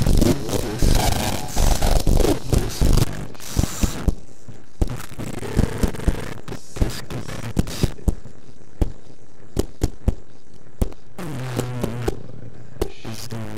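Experimental noise soundtrack: dense scraping and crackling for about four seconds, then sparse sharp clicks over a low hiss, with two brief swooping, warbling tones near the end.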